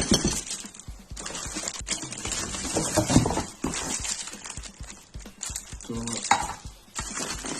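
Clattering, knocking and rustling as electronic practice drum kit parts and their packaging are handled and moved about during unpacking, with a sharp knock at the start.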